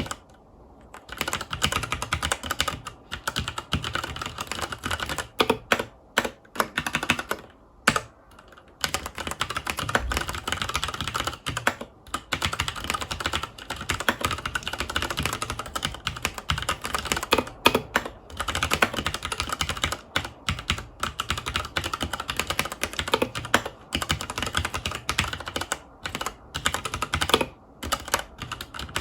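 Fast, continuous typing on a Filco Majestouch 2 Hakua tenkeyless mechanical keyboard with Cherry MX Brown tactile switches: a dense run of key clacks. The typing stops briefly near the start and again about eight seconds in.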